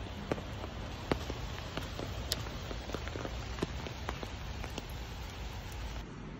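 Steady rain falling, with scattered drops landing close by as sharp ticks.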